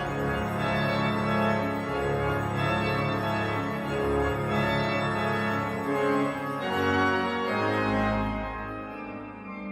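Organ duet music: sustained chords over held low bass notes, changing every second or two. Near the end the high notes drop away and the music grows quieter.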